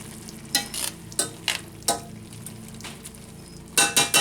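A utensil scraping and clinking against a pan as shrimp and spaghetti are tossed in a sizzling sauce, with a quick cluster of ringing metal clinks near the end.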